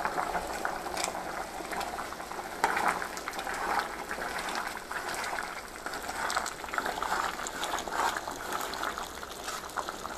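Thick chickpea and colocasia curry bubbling at a boil in an open aluminium pressure cooker, after ground roasted coconut has been added, with a metal ladle stirring it and now and then clicking against the pot.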